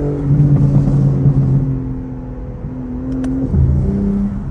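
Stock BMW G80 M3's S58 twin-turbo inline-six running loudly, with exhaust crackles over the engine note in the first second and a half and one sharp pop about three seconds in. The engine note shifts pitch near the end.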